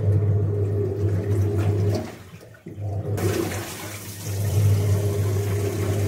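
IFB top-loading washing machine in its wash stage, its motor humming as it churns a thick blanket in sloshing water. The churning stops briefly about halfway through, then starts again, and from then on the side spray jet adds a hiss of spraying water.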